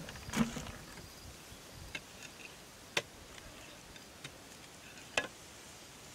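A handful of scattered sharp clicks and light knocks over a faint steady background hiss, the sharpest about three and five seconds in.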